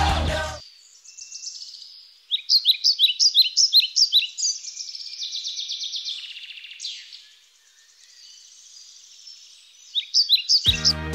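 Small songbirds singing: quick runs of sharp, high chirps, then a steadier twittering stretch and a single falling note, fading to faint chirps.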